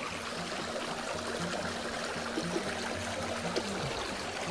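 Water of a small river running steadily.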